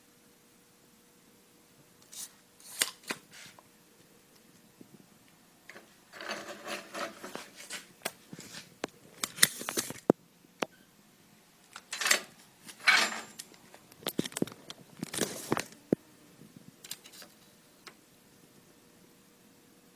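Scraping, rubbing and clicking from a small aluminium bench vise and a steel tape measure being handled on a metal workbench. The noises come in several short bursts a second or two long, over a faint steady hum.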